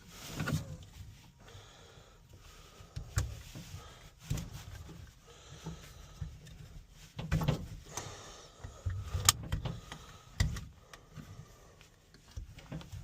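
Irregular knocks, clicks and rustles of a car seatbelt and its buckle being handled and tried together, with one sharp click about nine seconds in. The seatbelt tongue does not suit the buckle's shape.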